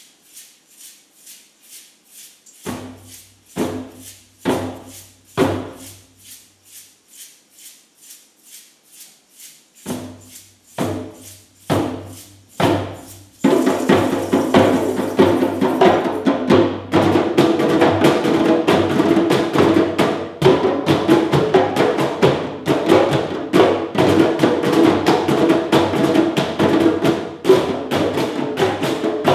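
Live hand-percussion ensemble. A steady pulse of small wooden hand-held percussion clicks about three times a second. Two groups of four deep drum strokes sound over it, then about halfway in the whole group comes in loudly on djembes, conga and cajón.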